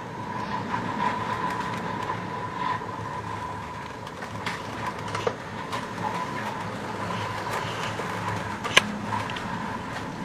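Fishing boat's machinery running steadily, a low hum with a whine, with scattered clicks and knocks and one sharp knock near the end.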